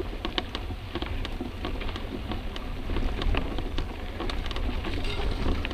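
Mountain bike riding over a dirt forest trail, heard from an onboard camera: irregular clicks and rattles of the bike and camera mount over the rough ground, with a low rumble of wind on the microphone.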